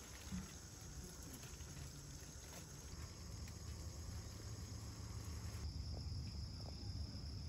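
Faint outdoor ambience: a steady high chirring of insects over a low rumble, with no voices.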